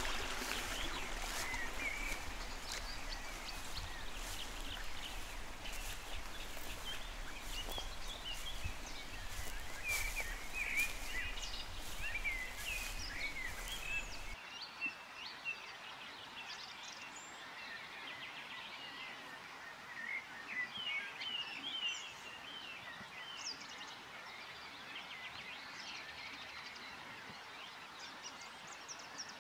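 Small songbirds chirping and twittering over open-air background noise. About halfway through, the low rumble and hiss underneath drop away abruptly, leaving the birdsong clearer.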